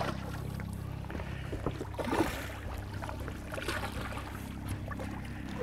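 Hooked bull redfish thrashing and splashing at the water's surface, loudest about two seconds in and again near four seconds. Under it runs the steady low hum of the boat's motor.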